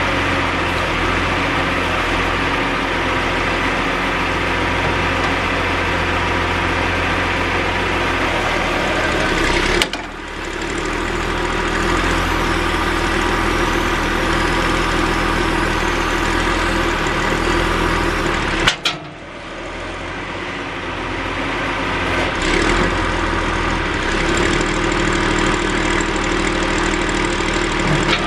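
John Deere backhoe's diesel engine running steadily. Twice the sound breaks off abruptly with a click, about ten seconds in and again past the halfway point, dropping in level for a moment before building back up.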